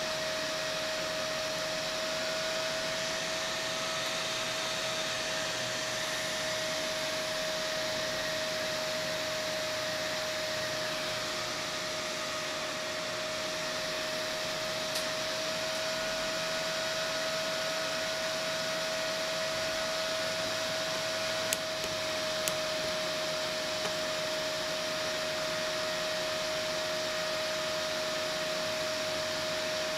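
Cooling fan on a Peltier module's heatsink running steadily, a whirr of moving air with a steady mid-pitched hum on top. Two faint clicks a little past the middle.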